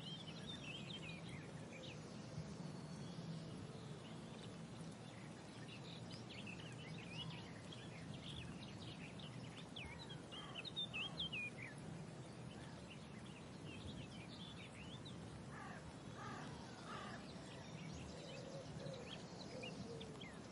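Outdoor park ambience: small birds chirping and singing throughout over a steady low hum, with a short run of lower, harsher bird calls a little past the middle and again near the end.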